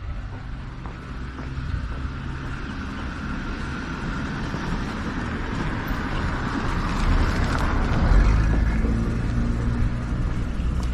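Street traffic: a car passing, its engine and tyre noise growing louder to a peak about eight seconds in, over a low rumble.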